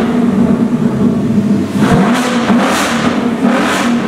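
2018 Ford Mustang GT's 5.0 L V8 revving loud through an exhaust with its mid muffler removed and straight pipe welded in its place. The engine is held at raised revs with several short throttle surges about halfway through and near the end.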